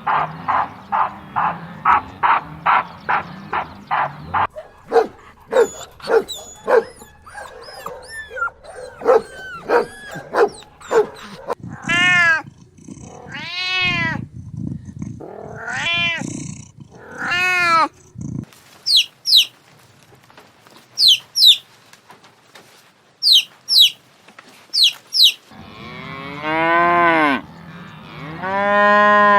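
A run of different animal calls: first a fast string of repeated calls, about four a second, then assorted calls, long drawn-out calls, and pairs of high chirps. Near the end come long, low cow moos.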